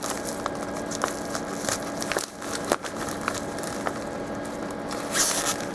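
A mailing package being handled: packaging rustling and crinkling, with small clicks and crackles and a louder rustle about five seconds in.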